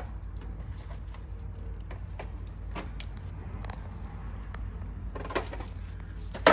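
Scattered light clicks and knocks from handling parts and wiring, over a steady low hum, with a sharper click near the end.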